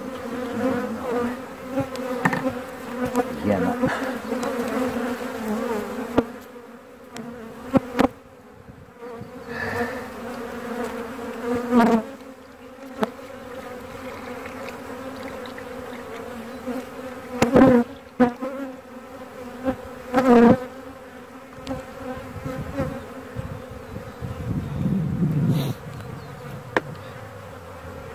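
Honeybees from an open hive buzzing as a steady hum, with a few sharp knocks, the loudest two near the middle and later on.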